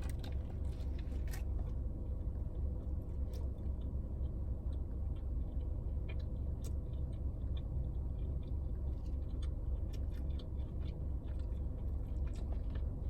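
A person chewing a mouthful of food with the mouth close to the microphone: scattered small wet clicks and smacks, over a steady low hum.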